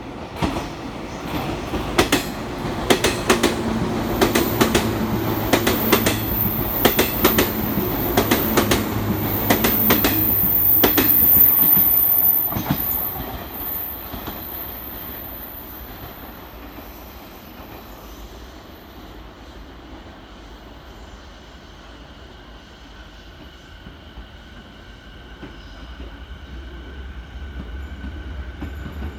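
A train running past, its wheels clattering over rail joints with a very high squeal; it grows louder and then drops away suddenly about 13 seconds in. Near the end a fainter steady whine of several level tones builds up.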